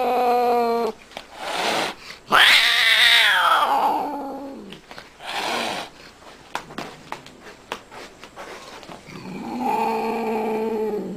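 Domestic cat giving long, drawn-out meows. A long call about two seconds in falls in pitch, short calls come in between, and a steady held call runs near the end. A run of light clicks sits in the quieter middle.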